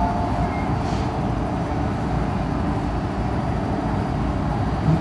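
Steady rumble and running noise of an MTR metro train moving slowly alongside a station platform.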